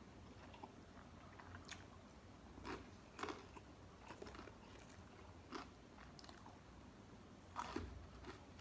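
A person biting and chewing crispy fried chicken, faint, with a few separate sharp crunches; the loudest comes near the end.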